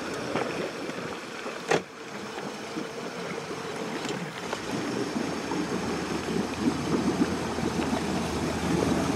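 Motorboat engine running slowly at idle, with water sloshing against the hull; the low rumble grows from about halfway through. A single sharp knock just under two seconds in.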